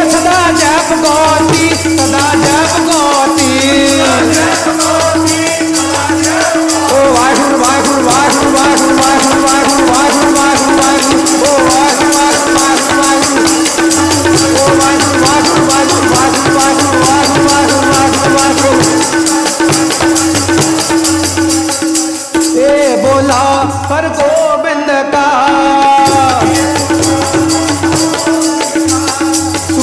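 Sikh devotional kirtan: a singer's voice over harmonium, with a fast, steady jingling beat and a low drum pulse.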